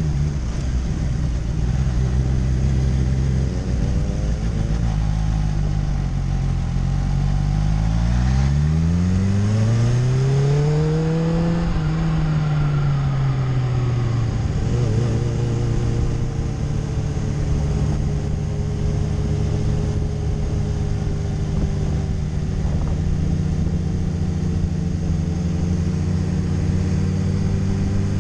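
Kawasaki Ninja H2's supercharged inline-four running at low speed, revving up once about eight seconds in and settling back down a few seconds later, then running steadily.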